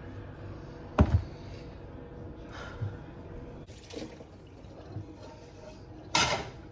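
Kitchen handling noises: a sharp knock about a second in, a few faint small clinks, and a short rushing noise near the end.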